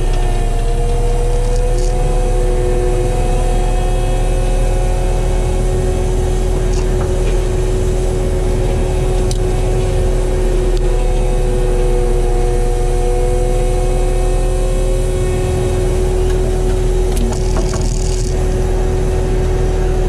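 Kubota SVL95 compact track loader's diesel engine running steadily under load, driving a Promac HSM60 drum mulcher through brush, heard from inside the cab, with a steady whine over the engine drone. A few brief clicks of debris striking the machine.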